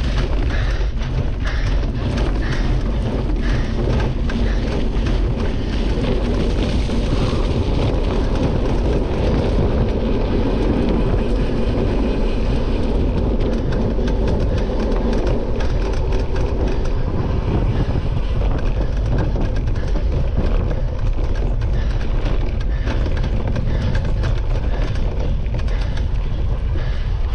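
Cyclocross bike ridden over bumpy grass and dirt, heard from a camera mounted on the bike: a steady rush of wind and tyre noise with constant small rattles and knocks from the bumps.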